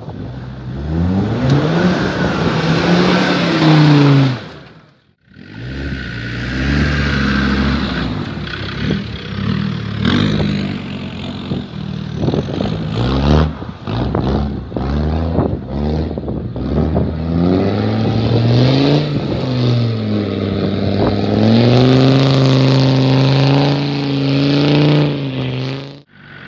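Land Rover Discovery TD5's five-cylinder turbodiesel engine revving repeatedly under load as the vehicle drives through muddy ruts, its pitch rising and falling with each push of the throttle, then held higher and steadier near the end. The sound cuts out briefly about five seconds in.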